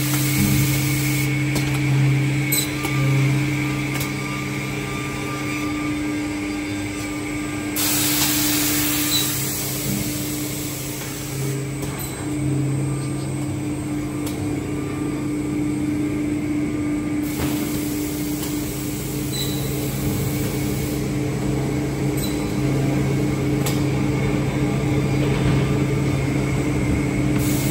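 PRO-45A straight and 45° tilting edge banding machine running, a steady machine hum with an occasional faint click.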